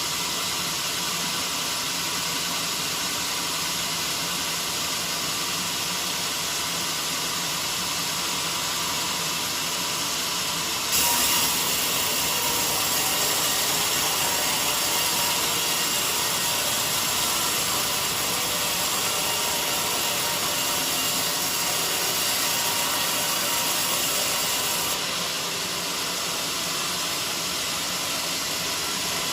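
Portable band sawmill running steadily with a hissing noise. About eleven seconds in it suddenly gets louder and hissier, and it drops back about fourteen seconds later.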